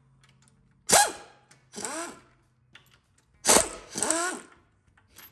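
A person sneezing several times in quick succession, in two pairs of sneezes, over a faint steady shop hum.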